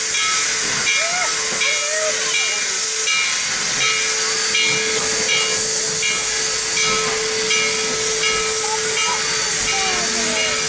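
Steam locomotive No. 734, a 2-8-0 Consolidation, hissing steam steadily while it stands on a turning turntable, with a steady tone and a rhythmic pulse about twice a second.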